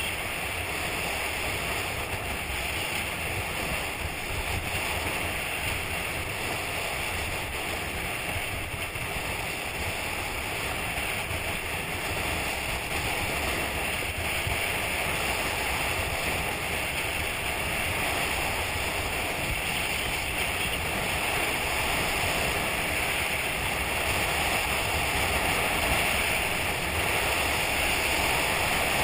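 Steady rushing noise from a GoPro skiing down a groomed slope: wind over the camera's microphone mixed with skis sliding and scraping on packed snow, growing a little louder in the second half.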